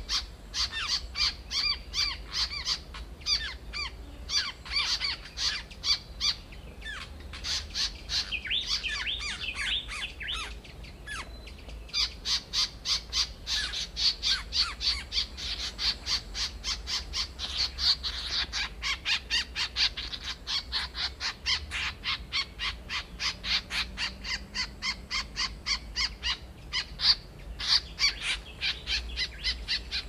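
Bold-striped tit-babblers (ciung air coreng) calling: a long, fast series of short repeated notes, about four a second, broken by a stretch of more varied chattering about seven to eleven seconds in.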